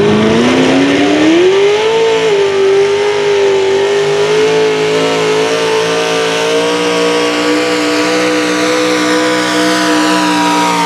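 Modified International Harvester pulling tractor's engine revving up hard over the first two seconds as it launches, then held at high revs under full load while it drags the weight-transfer sled. Loud and steady, with a slight dip in pitch near the end.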